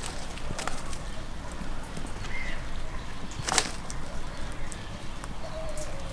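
Village ambience with a steady low background, a few sharp clicks (the loudest about three and a half seconds in) and a short bird chirp.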